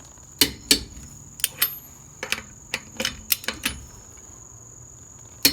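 About a dozen sharp metallic clicks and clanks at uneven intervals, some in pairs, from a Harbor Freight torque wrench and 21 mm socket being worked on a car's lug nut to check it at 76 ft-lb. A steady faint high-pitched whine runs underneath.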